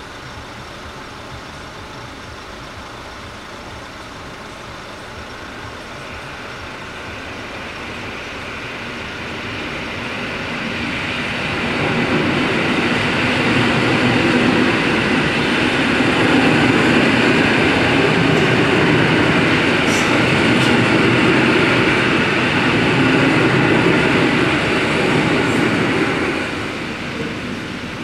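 Electric commuter train passing over a level crossing: its rumble and wheel noise build up gradually, stay loud for about fourteen seconds as the carriages go by, then drop away near the end.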